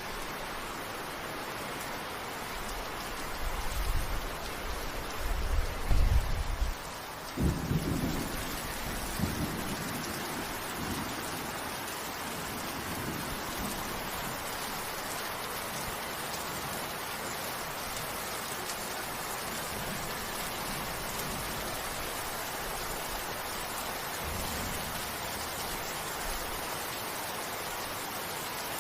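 Steady, even rain hiss, with thunder rumbling low in the first third: it swells from about three seconds in, peaks around six to eight seconds and dies away by about eleven seconds, leaving the rain alone.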